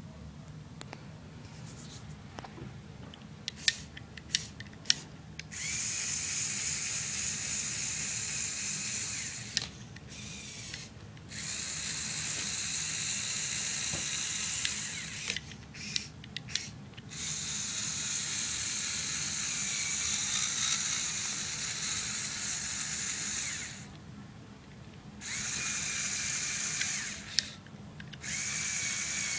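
Lego Technic Power Functions electric motors and plastic gear drivetrain whirring with a high whine as the RC chassis drives, in five runs of a few seconds each with short stops between. A few sharp clicks come before the first run.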